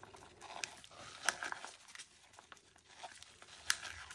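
Stir stick scraping and knocking in a clear plastic cup while metallic paste is mixed into epoxy art resin, with light crinkling and three sharp clicks.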